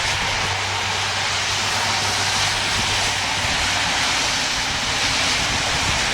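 Federal Signal STH-10 siren unit running: a steady low engine hum under a loud, even rushing noise, with no rising or falling siren tone.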